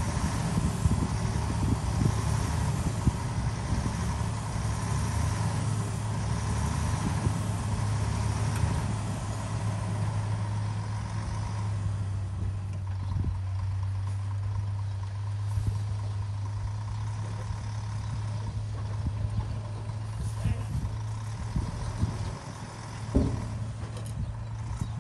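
Dump truck's diesel engine idling steadily with its tipper body raised while the load of soil slides out. A hiss over the engine fades about halfway through, and there are a couple of short knocks near the end.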